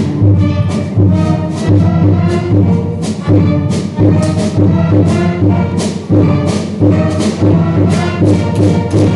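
Loud brass band music with a steady, driving drum beat.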